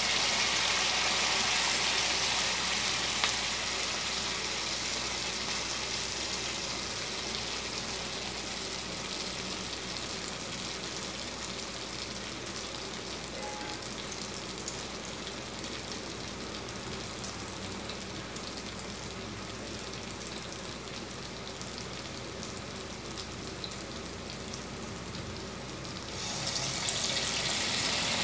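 Rice-batter-coated stuffed bitter gourd pieces sizzling as they deep-fry in hot oil in a kadai. The hiss is loud as the first piece goes in, slowly settles, then rises again near the end as another piece is lowered into the oil.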